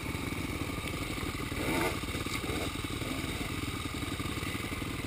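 Yamaha dirt bike engine idling steadily, with a brief small rise about two seconds in.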